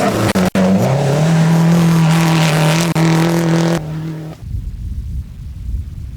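Rally car engine at high revs, its note rising about a second in and then held steady. About four seconds in it falls away abruptly, leaving only a low rumble.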